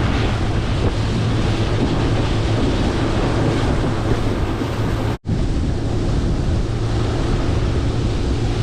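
Boat motor running under way with a steady low hum, under wind buffeting the microphone and rushing water. A split-second break in the sound about five seconds in.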